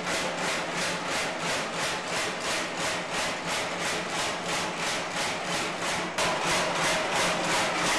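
Homebuilt mechanical power hammer pounding a red-hot steel bar, with rapid, even blows about four a second. The blows get a little louder about six seconds in.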